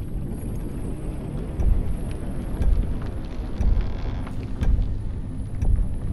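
Low rumbling drone of a dramatic film score, with a deep thump about once a second like a slow heartbeat.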